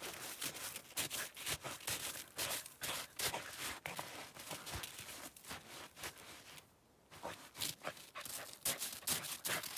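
Irregular crunching in hard-frozen, crusted snow as a dog bounds through it with footsteps alongside, several crunches a second, pausing briefly about seven seconds in.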